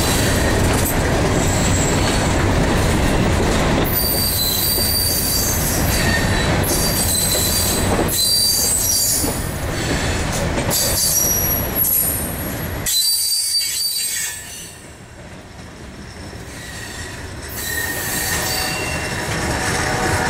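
Freight train covered hopper cars rolling past, steel wheels squealing on the rail in short high-pitched squeals over a steady rumble. The rumble drops away for a few seconds past the middle, then builds again.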